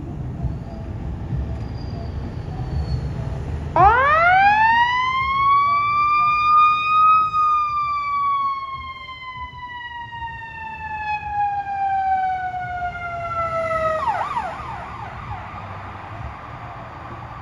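Fire-rescue ambulance siren, sounding while the unit transports under emergency. It winds up steeply over about three seconds, falls slowly for about seven, then breaks off into a few quick yelps. Road traffic rumbles before the siren starts.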